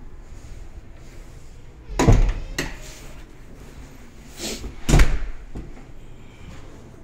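Interior doors being shut: two loud thumps about three seconds apart, the first about two seconds in, each with a smaller knock close by.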